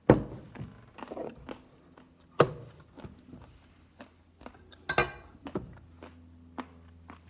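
A sharp knock as a stainless steel tumbler is set down on the desk close to the microphone, then scattered knocks and light clicks as things are handled, with two more solid knocks about two and a half and five seconds in.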